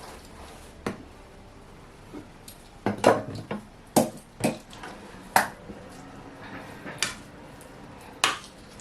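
Kitchen utensils clinking and knocking against dishes: a spoon or knife tapping a bowl or tray, in about eight sharp, irregular clacks with brief ringing.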